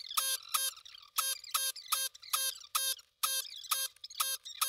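Vacuum desoldering gun's pump running in short, evenly spaced buzzes, about two and a half a second, sucking molten solder off a chip's pins one after another.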